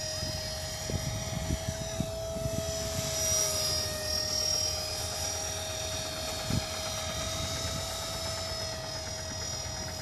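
A 450-size radio-controlled helicopter in flight: a steady rotor and motor whine, with a higher whine that rises and falls in pitch as it manoeuvres. Short rumbles of wind on the microphone come and go underneath.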